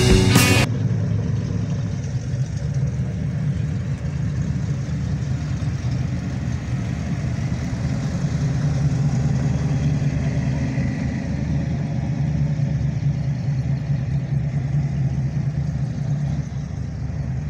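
Classic cars rolling slowly past one after another, their engines giving a steady low rumble at low speed.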